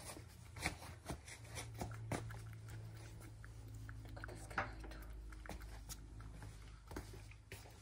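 Domestic cat eating a treat from a ceramic bowl: irregular small clicks and smacks of chewing and licking, over a low steady hum.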